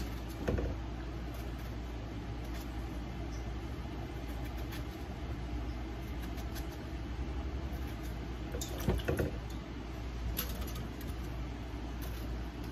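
Kitchen knife cutting vegetable chunks by hand over a stainless steel bowl, with a few sharp cuts and knocks, the clearest about half a second in and around nine seconds in, over a steady low hum.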